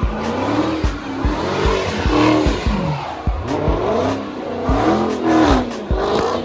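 A car engine revving hard, its pitch climbing and falling again and again as the car drifts, with short low thuds about every half second.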